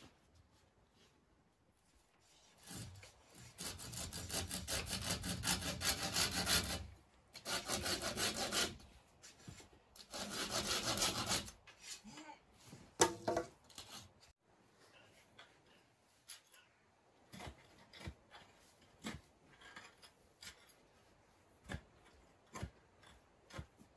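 Hand saw cutting through a wooden pole in three spells of fast back-and-forth strokes. After that come scattered light knocks and scrapes as a pole is worked into loose soil.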